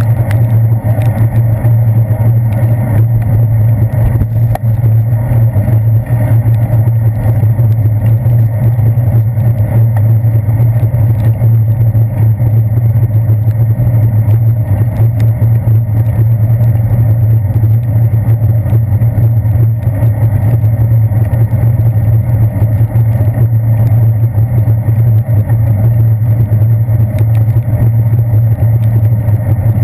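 Loud, steady low rumble of wind and road vibration picked up by a handlebar-mounted GoPro Hero 2 on a moving bicycle, with a hiss from the wet road beneath it.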